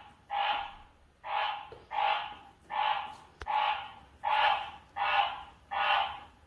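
A frog calling over and over, a steady series of short loud calls about 1.3 a second, a sound the owner likens to a bull's.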